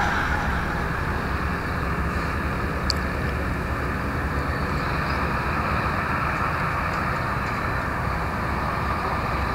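Steady low rumble of vehicle noise with a hiss over it, holding an even level throughout.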